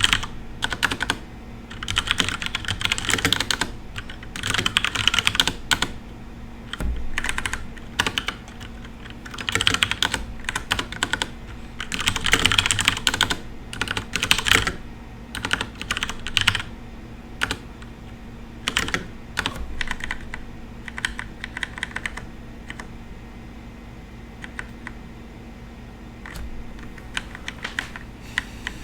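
Typing on a FILCO Majestouch Ninja tenkeyless mechanical keyboard with brown switches: quick runs of keystrokes broken by short pauses, thinning to scattered single presses in the last several seconds.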